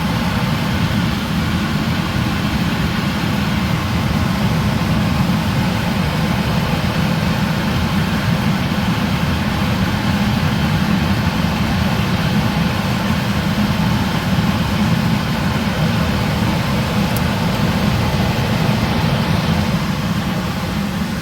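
Furnace blower running steadily with a loud, even whoosh of fan and air, the unit having just kicked on after being powered back up.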